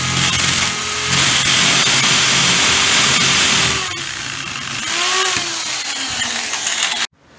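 Corded electric hand drill boring a 5 mm hole through a thin wooden board, running steadily for nearly four seconds. It then drops in level, and the motor's pitch swoops up and down as it is eased off. The sound cuts off abruptly shortly before the end.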